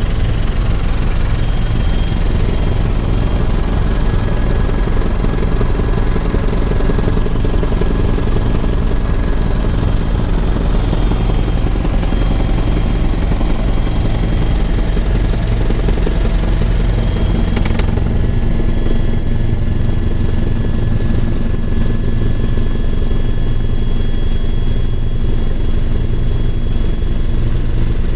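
Bell 412 twin-turbine helicopter in flight, heard inside the cabin: a loud, steady deep rotor and engine drone with a thin high turbine whine. About two-thirds of the way through, the sound changes abruptly, with less deep rumble and the whine a little lower.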